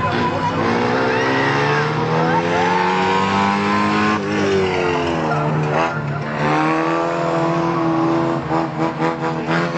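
Race car engines running hard in a figure-eight race, several at once. The pitch climbs slowly, drops sharply about four seconds in and again near six, then breaks into quick pulses near the end.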